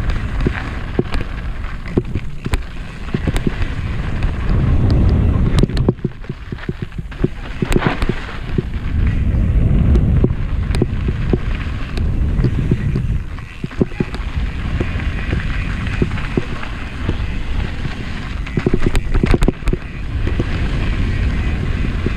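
Mountain bike riding fast down a dirt singletrack: wind buffeting the microphone in rising and falling gusts, tyres rolling over dirt and rocks, and frequent sharp clicks and rattles from the bike jolting over bumps.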